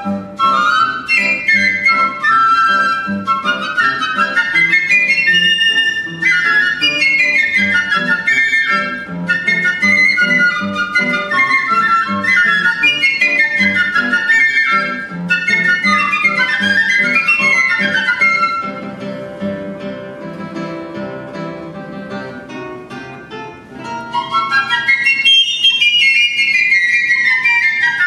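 Two piccolos playing fast, interweaving runs and trills over a classical guitar accompaniment. About two-thirds of the way through the piccolos fall quieter for a few seconds, then come back in with a long falling run.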